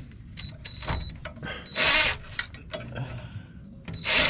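Cordless 3/8-inch-drive impact wrench fired in two short bursts, about two seconds in and again near the end, on a bolt being backed out of the exhaust, with light metal clinks from a hand wrench holding the nut in between.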